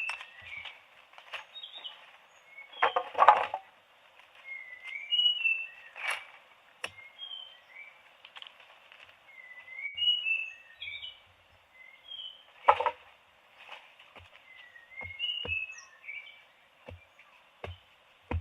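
Many short, high, bird-like chirps, each sliding up or down in pitch, scattered through the whole stretch. Sharp clicks come in between, with louder knocks about three seconds in and again near thirteen seconds.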